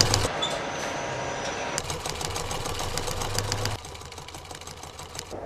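Assembly-line machinery running: a steady low hum with rapid mechanical clicking. The sound changes abruptly twice and drops quieter about two-thirds of the way through.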